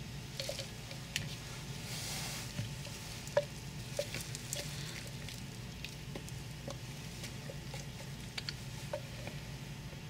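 Light clicks and taps of a utensil against a container, with a soft wet swish about two seconds in, as coloured cold-process soap batter is poured and spooned; a steady low hum underneath.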